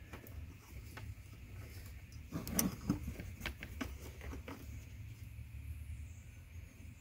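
Handling sounds of a plastic zip tie being threaded around a cable under the dashboard: a short burst of rustling and knocking about two and a half seconds in, then a few light clicks, over a faint low hum.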